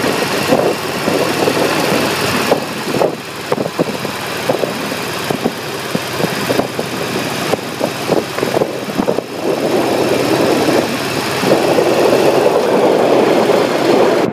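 Cruiser motorcycle riding at road speed: the engine running under rushing wind noise buffeting the handlebar-mounted microphone, growing louder about ten seconds in.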